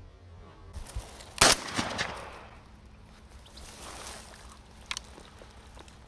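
A single shotgun shot about a second and a half in, its report echoing away over the next second. A fainter sharp click follows near the end.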